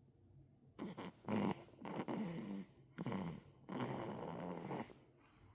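Snoring: after a brief quiet, a run of rough, buzzing snore breaths follows one another over the next few seconds.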